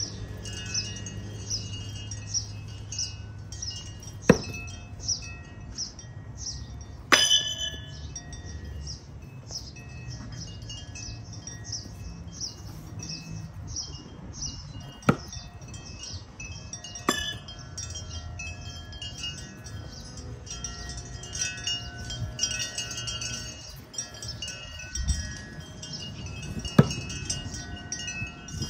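Wind chimes tinkling steadily, and about five sharp knocks spaced through it as thrown knives strike the target. One knock about seven seconds in rings on briefly.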